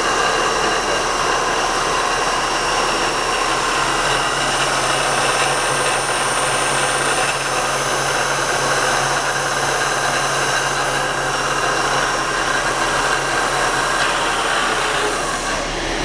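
Steady machinery noise: a constant mechanical whir with several high, steady whining tones over a low hum, unchanging throughout.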